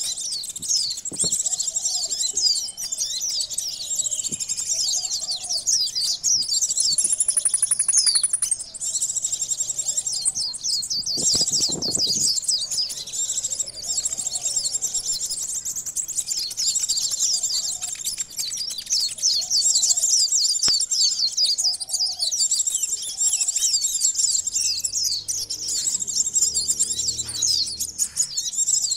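Sunbirds (konin) chattering noisily, many rapid high chirps overlapping without pause, mixed with female sunbird calls and excited white-eye (pleci) song. It is a bird-lure (pikat) recording meant to draw wild birds in.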